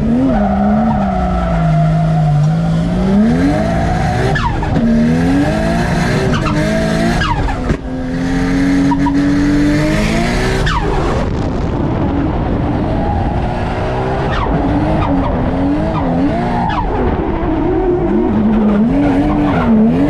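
Drift car engine, heard from inside the cabin, revving hard under throttle, its pitch climbing and falling sharply several times as the revs swing through the run. Tyres squeal and skid underneath as the car drifts and smokes its rear tyres.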